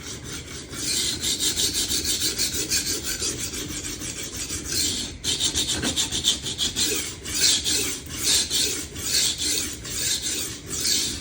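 Steel kitchen knife blade rasping back and forth on a coarse 140-grit Atoma diamond plate in rapid freehand strokes, about three a second, with a brief break about five seconds in. These are burr-raising strokes on one side of a blunt, chipped edge.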